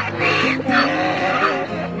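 Background music with steady held notes, and short noisy bursts of an animal's calls over it, about three in two seconds.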